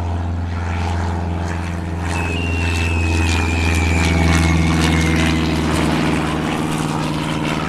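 Propeller airplane engine drone, a steady low hum with even overtones, with a thin whistle slowly falling in pitch around the middle.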